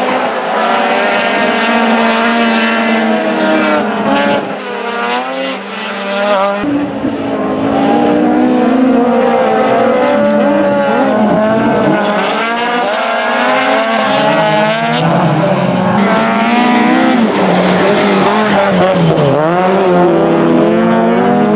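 Rallycross cars racing on a gravel track, their engines revving hard and the pitch climbing and dropping over and over through gear changes and corners. The sound changes abruptly about six and a half seconds in as a different car takes over.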